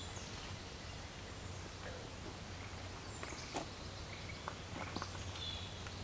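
Steady outdoor background with a low hum and a few faint, short, high bird calls and clicks in the second half.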